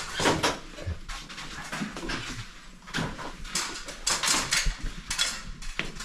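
Irregular knocks and light clatter, a string of short sharp sounds with no steady machine running.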